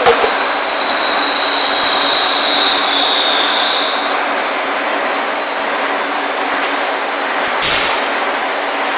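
Turret lathe running with a steady machine noise and a high whine over the first few seconds, as in metal cutting. There is a sharp knock at the start and a short, loud burst of noise a little before the end.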